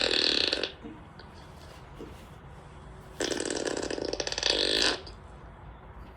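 Two comic fart sound effects played from a phone: a short one ending just under a second in, then a longer buzzy one of nearly two seconds starting about three seconds in.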